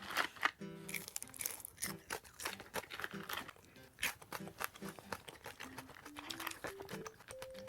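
Crispy fried chicken crunching and crackling as it is bitten and chewed, in many short sharp crunches, over soft background music.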